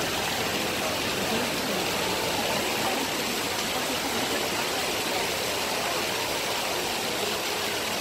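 Steady rush of a large fountain's falling water, mixed with the murmur of a big crowd talking.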